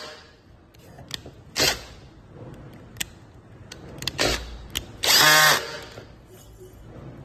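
Short whirring bursts of a small electric motor like a power drill, a brief one about a second and a half in and a louder, longer one about five seconds in, with light mechanical clicks between them.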